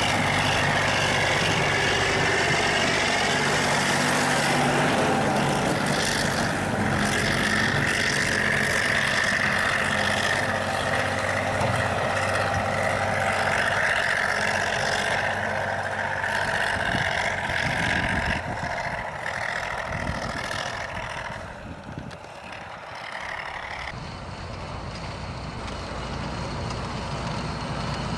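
Heavy diesel vehicle engine running steadily, its sound shifting several times and dipping briefly about three quarters of the way through.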